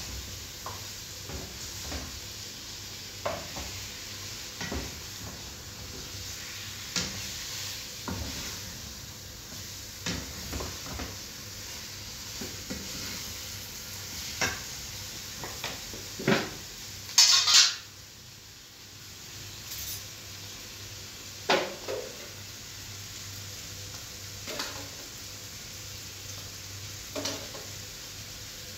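Food sizzling as it fries in a frying pan on a gas stove, stirred with a wooden spatula that knocks and scrapes against the pan at irregular moments. A brief louder burst comes a little past halfway.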